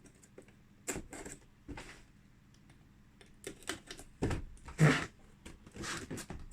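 Cardboard box of a die-cast model car being handled: scattered taps, knocks and rustles, the loudest about four to five seconds in.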